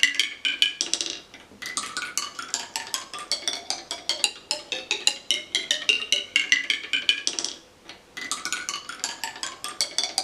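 Marbles running down a wooden musical marble tower, striking its notes in quick runs of clicks with ringing pitched tones. The runs pause briefly twice, a little over a second in and about eight seconds in.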